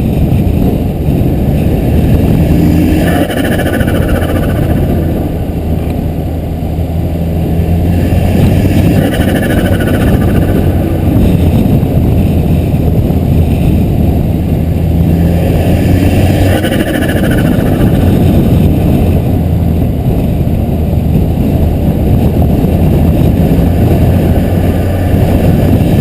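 Volvo S60R's turbocharged inline-five engine running under way, with a higher-pitched sound rising over the engine three times. Its diverter valve line is disconnected, so excess boost is not vented and the turbo flutters on compressor surge.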